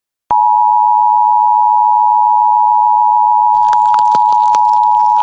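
A loud, steady electronic beep tone, a single high pitch held unchanged, like a test tone or censor bleep. In its last second and a half a quick series of clicks, about four a second, with a low hum, plays along with it.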